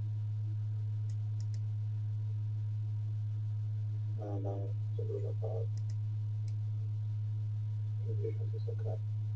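A steady low hum from a running LED mini projector, with a few faint murmurs and light ticks over it.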